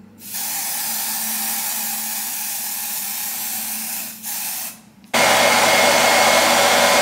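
Aerosol can of lace tint hissing in one long spray of about four seconds, then a short second spray. About five seconds in, a hair dryer switches on and runs steadily with a thin whine, louder than the spray, drying the freshly tinted lace.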